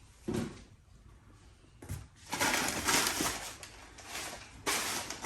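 Rummaging in a cardboard box of oil bottles and packing paper: irregular rustling and crinkling, with bottles being lifted out, loudest in a longer stretch in the middle and again near the end.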